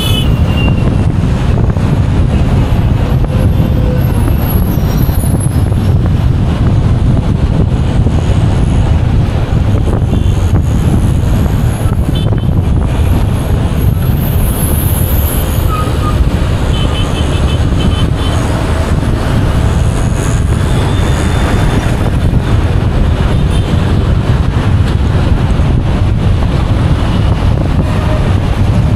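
Steady road traffic noise heard from a moving vehicle: a dense low rumble of engines and tyres, with trucks and cars in the neighbouring lanes.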